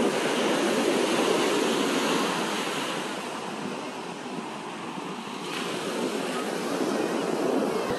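Sea surf breaking and washing up a sandy beach: a steady rushing wash that eases off about halfway through and builds again toward the end.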